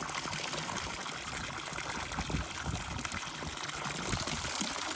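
Spring water falling in a steady stream from a pipe spout and splashing into a stone trough full of water.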